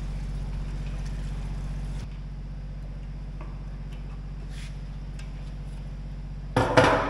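Gasoline poured from a metal gas can into a garden tractor's fuel tank, then the metal can set down on the concrete floor with a loud clank near the end. A steady low hum runs underneath.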